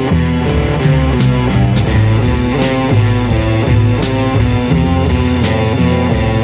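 Instrumental passage of a 1972 psychedelic rock song: guitars, bass and drums playing a stepping melodic line with regular cymbal hits, no vocals.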